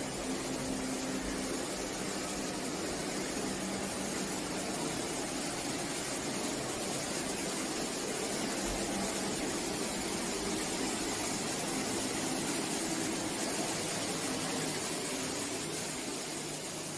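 Steady hiss with a faint low hum underneath, even and unchanging throughout.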